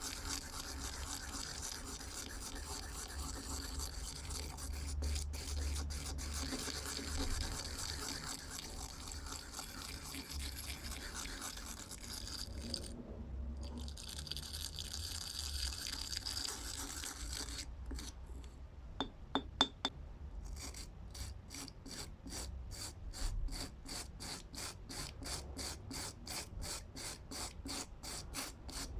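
Hand abrasive work on a screwdriver being restored: continuous scraping at first, a few sharp metallic clicks about two-thirds of the way in, then regular back-and-forth rubbing strokes at about two a second.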